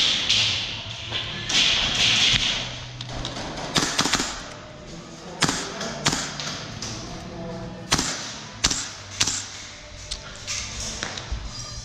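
Scattered sharp cracks and taps, about a dozen at irregular intervals and most of them after the first few seconds, typical of airsoft guns firing and BBs striking walls and props. Background music plays underneath.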